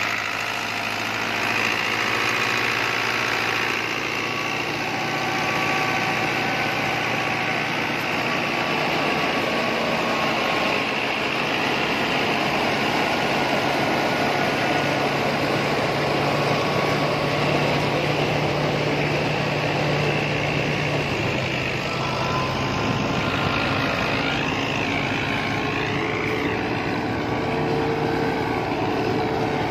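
New Holland 640 tractor's diesel engine running at a steady speed, powering a belt-driven thresher, in a continuous even mechanical drone with a low steady hum.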